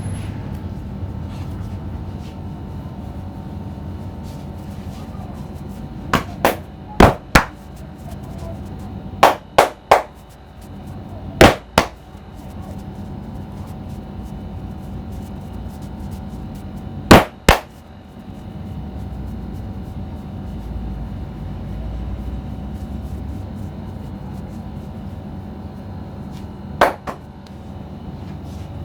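Sharp, loud smacks of a barber's hands striking during a head massage, mostly in quick pairs about a third of a second apart, with one group of three and a single smack near the end, over a steady background hum.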